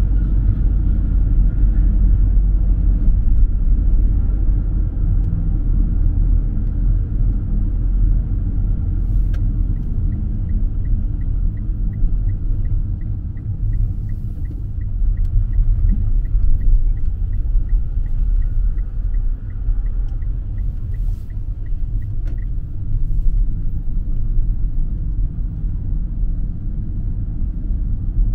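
Steady low rumble of a car's engine and tyres, heard from inside the cabin while driving. From about ten seconds in until about twenty-two seconds, a turn-signal indicator ticks about three times a second.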